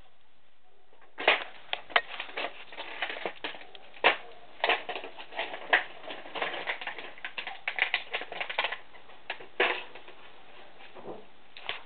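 A dog's claws clicking and scraping on the dry bark of a dead tree trunk as it climbs along it: a fast, irregular run of clicks and scratches that starts about a second in and thins out near the end.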